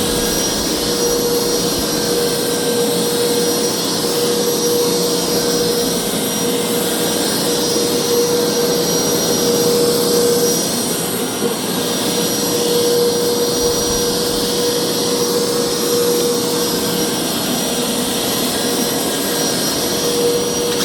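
Hoover upright carpet cleaner running steadily, its suction motor giving a loud, even rushing noise with a steady whine.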